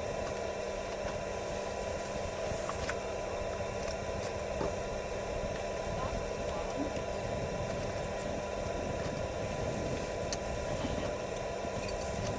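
Steady vehicle engine and cabin hum, heard from inside the car, with a few faint ticks.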